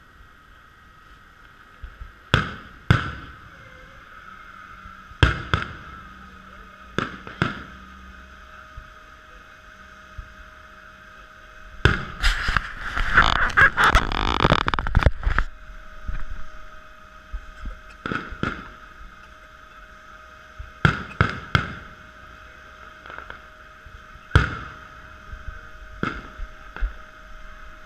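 Fireworks display: aerial shells bursting in irregular sharp bangs, about a dozen spread out, with a dense run of rapid bangs and crackling from about twelve to fifteen seconds in.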